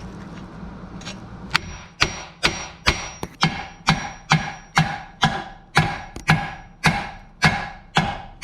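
Steady hammer blows on rusted steel suspension parts, about two a second starting a second and a half in, each ringing like struck metal, knocking the seized parts loose.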